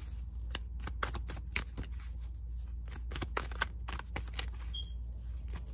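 A deck of tarot cards being shuffled by hand: an irregular run of soft card flicks and slaps.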